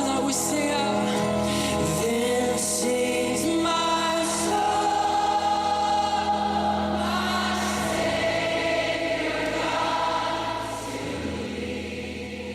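Choir singing in a piece of music, with sustained sung notes, fading out near the end.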